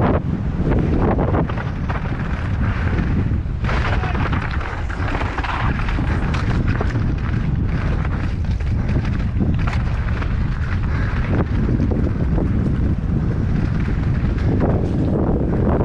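Wind buffeting a helmet-mounted action camera's microphone at speed, over the continuous rattle and knocking of a mountain bike's tyres and frame running down a rocky, gravelly trail.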